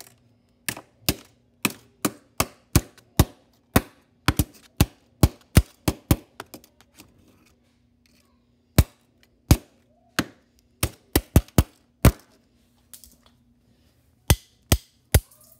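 A hand tool repeatedly smashing a computer mouse, sharp hard blows about two to three a second. They stop for a couple of seconds around the middle, then resume more spaced out.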